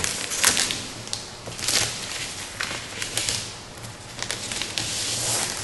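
Protective plastic film being peeled off a sheet of acrylic: crinkling plastic with sharp crackles, coming in several uneven rustling swells.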